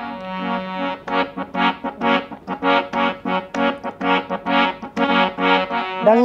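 Harmonium playing, with held chords at first and then short chords repeated in a steady rhythm of about two a second.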